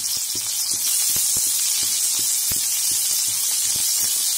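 Green chillies and chopped onion sizzling in hot oil in a kadhai: a steady hiss with frequent small crackling pops.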